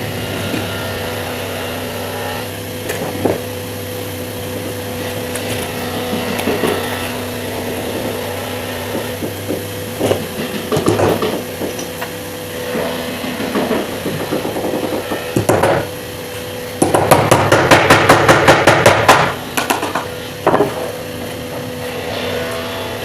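Wood being worked with tools over a steady machine hum: scattered knocks, then a loud run of rapid, evenly spaced strikes for about two and a half seconds in the second half.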